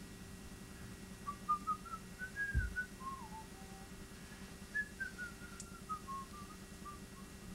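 A person whistling a wandering tune softly in short notes that rise and fall, over a steady low hum, with one dull low thump about two and a half seconds in.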